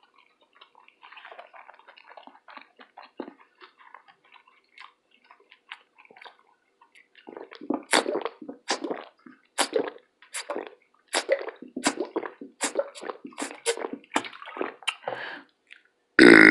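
Wet mouth sounds close to the microphone, typical of a mukbang eating show. For the first few seconds there is only faint, scattered smacking; from about halfway a run of louder, sharp wet clicks follows, roughly two a second, which then stops.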